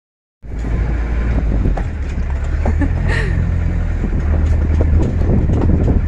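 Low rumble of a small truck driving, heard from its open cargo bed. Loose metal and the wheelbarrow in the bed rattle and knock, with a short high-pitched sound about three seconds in.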